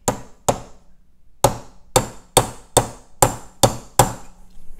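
Hammer striking a transfer punch set in a metal mounting-plate hole to mark a new hole: nine sharp taps, two at the start, then after about a second's pause seven more at about two a second.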